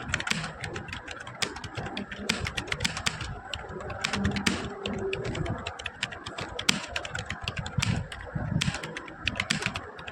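Fast touch-typing on a laptop keyboard: keys clicking in quick, irregular runs as a paragraph is typed out.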